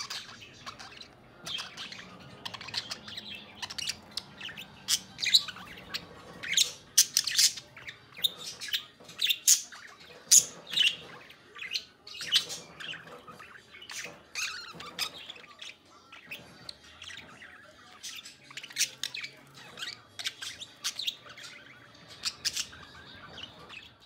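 Budgerigars chattering: a rapid, irregular stream of short high chirps and warbles.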